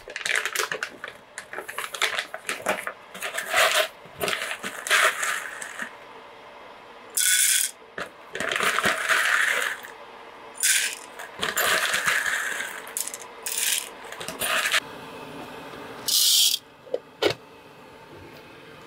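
Kitchen things being handled: a run of irregular clinks and rattles with short rushing or scraping bursts between them, as coffee-making things are got out and set up.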